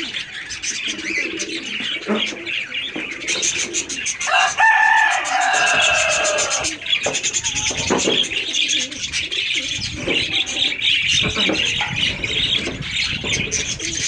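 A chorus of birds chirping densely, with lower cooing calls underneath. About four and a half seconds in, one louder drawn-out call slides down in pitch for about two seconds.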